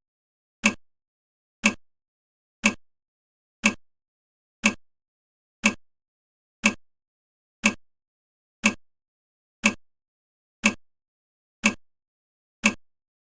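Countdown timer's ticking sound effect: one sharp, identical clock tick every second, at a perfectly even pace.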